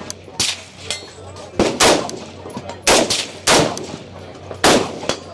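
Rifle shots from a Primary Weapon Systems UXR fired semi-automatically: about six loud, sharp reports at an uneven pace, roughly one every half second to a second, with a couple of fainter shots between them.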